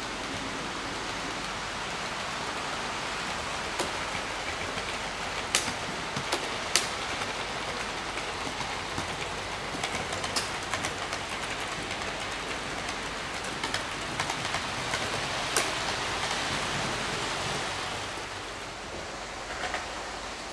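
Model trains running on a layout's track: a steady rushing hiss broken by a few sharp clicks.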